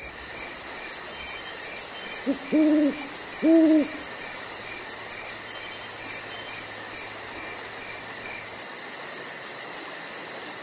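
Night forest ambience: an owl hooting twice, a short and a long hoot about two seconds in, then another about three and a half seconds in, over a steady hiss of night insects with a regular high chirp about twice a second.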